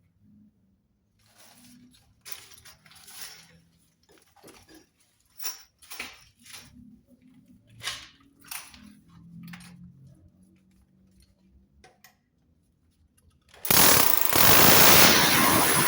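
Scattered light knocks and clicks of handling tools and parts, then, near the end, an electric drill starts abruptly and runs loudly and steadily, drilling holes for wall plugs through the sheet-metal flashing.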